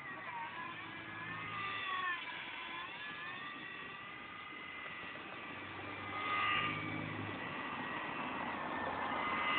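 RC Snoopy Red Baron model plane's motor and propeller whining in flight, the pitch wavering up and down, louder about six seconds in and again near the end.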